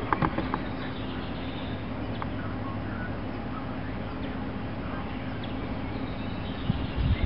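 A few light metal clicks of a screwdriver working on a small-engine carburetor, with low knocks near the end as the carburetor is handled. Behind them a steady low hum and occasional short bird chirps.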